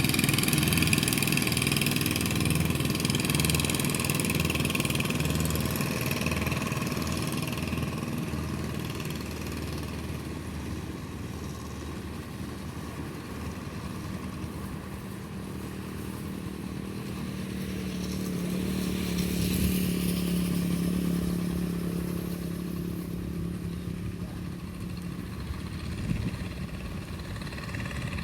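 An engine running steadily. It fades over the first dozen seconds, grows louder again around twenty seconds in with a steady hum, then fades once more.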